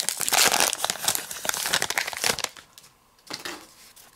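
Baseball card pack wrapper crinkling and tearing as it is ripped open, for about two and a half seconds, followed by a brief rustle as the cards are drawn out.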